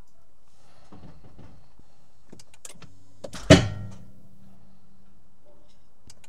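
A few light metal clicks, then one loud sharp metallic bang about three and a half seconds in that rings briefly, from tool work on a stuck engine pulley bolt.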